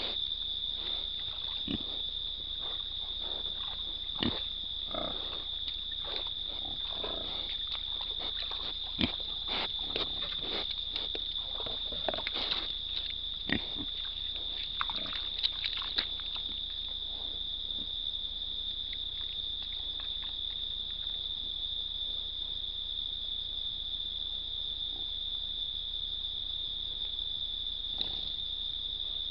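Hogs snuffling and grunting close by, short scattered sounds over the first half or so, then dying away, over a steady high chorus of crickets.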